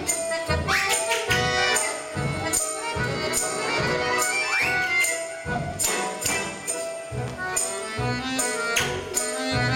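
Russian folk instrument ensemble playing a lively tune: balalaikas, bayan and accordion over a steady drum beat with jingling tambourine-like percussion. Short rising slides in pitch cut through a few times, about half a second in, near the middle and at the end.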